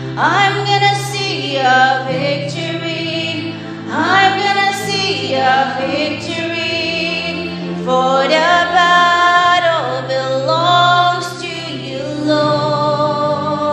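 Live worship band playing a contemporary Christian song: a woman sings lead with backing singers, over keyboard and bass guitar holding long low notes.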